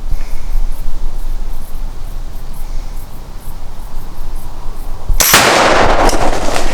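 Gunpowder and aerosol air-freshener target exploding about five seconds in: a sudden bang followed by a loud rushing blast that lasts about a second and a half. Wind rumbles on the microphone before it.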